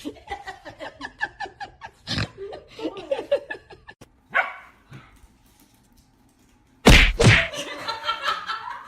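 Dog barking and yipping in quick short calls, followed after a brief lull by one loud sudden sound near the end.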